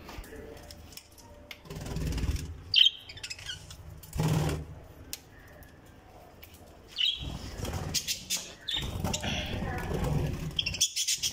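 Budgerigars fluttering and flapping their wings inside an aviary cage in several short rushes, with brief high chirps in between.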